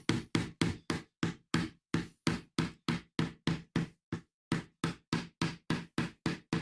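Rapid light tapping, about three to four even taps a second, driving a thin blade further in under the glued fretboard of an Epiphone Les Paul neck to prise it off. The taps stop just at the end.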